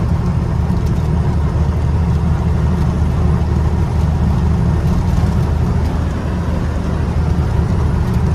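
Truck engine running while driving along the road: a steady, loud low drone with road noise.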